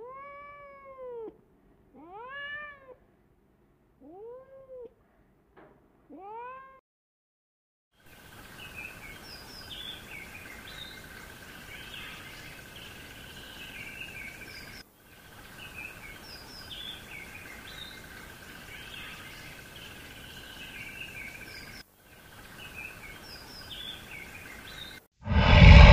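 A kitten meowing about five times, short mews that rise and fall in pitch. Then a faint background with a steady high hum and scattered high chirps. A sudden loud burst comes right at the end.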